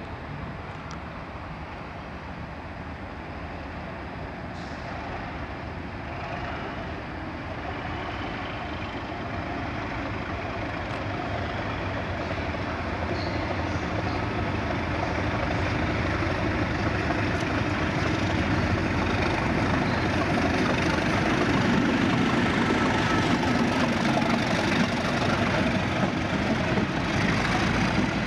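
Class 37 diesel locomotive's English Electric V12 engine working as it hauls a train of empty MGR coal hopper wagons, growing steadily louder as it approaches and then holding loud as it passes.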